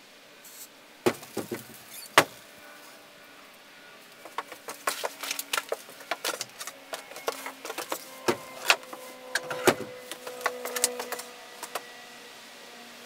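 Irregular clicks, taps and light clinks of small hard objects, such as the artist's brushes and paint containers, being handled and set down, a few with a brief ring. There are a couple of sharper knocks in the first seconds, and the taps grow dense from about four seconds in until shortly before the end.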